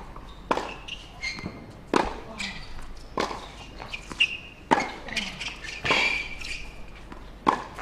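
Tennis rally on a hard court: the ball is struck back and forth by the players' rackets, six sharp pops about every second and a half.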